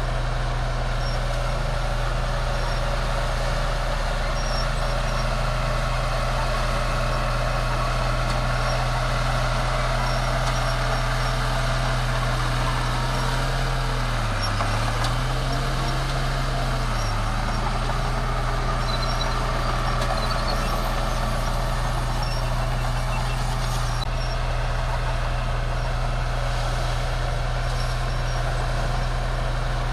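Bulldozer's diesel engine running steadily, its pitch dipping briefly about halfway through and then coming back up.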